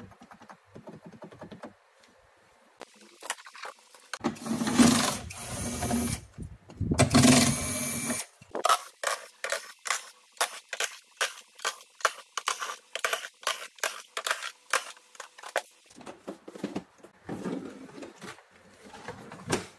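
Plastic keys of an electronic keyboard clacking as they are pressed, then a cordless power screwdriver running in two bursts, followed by a long run of regular sharp clicks, about two a second, and more handling noise near the end.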